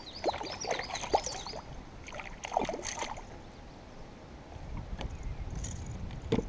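Small hooked pike thrashing and splashing at the water's surface beside a kayak, a flurry of sharp splashes over the first three seconds. A single knock near the end.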